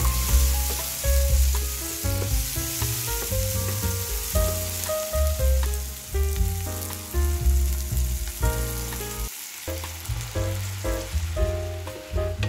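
Halved cherry tomatoes and garlic sizzling in oil in a frying pan, stirred with a wooden spatula, under background music with a strong bass line and held melody notes.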